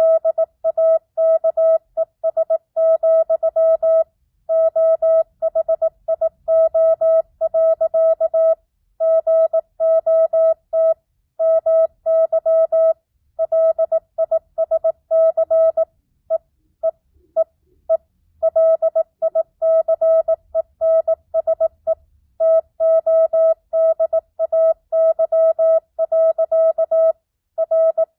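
Morse code (CW) tone, a single steady pitch keyed on and off in dots and dashes at 18 words per minute with normal (non-Farnsworth) spacing, short pauses marking the gaps between words. It spells out a simulated two-way ham radio contact (QSO).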